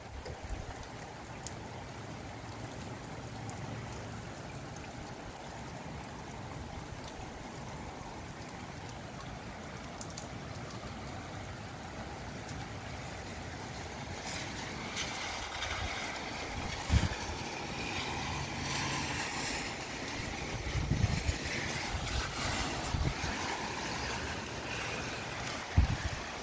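Gusty southeast wind and rain in a storm: a steady rushing hiss that swells and grows stronger about halfway through as the wind picks up, with a few sudden low thumps of wind hitting the microphone.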